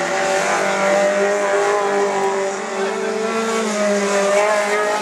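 Race car engines running at high revs, their pitch rising and falling with throttle and gear changes.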